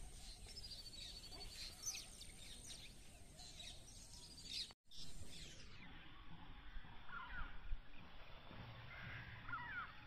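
Faint outdoor ambience with birds chirping and calling, including a quick run of repeated high notes near the start and scattered shorter calls later.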